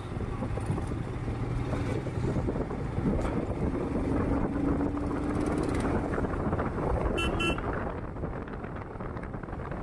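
Riding a motorcycle through city traffic: a continuous rush of wind and engine noise, with a short vehicle horn beep about seven seconds in.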